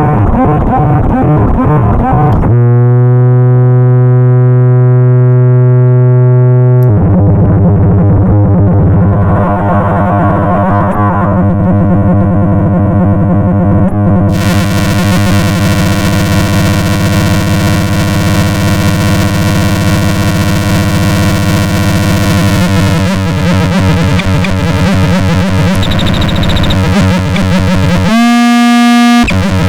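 Self-oscillating feedback loop of a circuit-bent pedal built from EQD Life and DOD Carcosa clones, droning loud distorted tones. The sound switches abruptly several times: a steady chord of clean tones a few seconds in, then a dense buzzing drone that turns brighter and hissier about halfway, with a brief clean tone near the end.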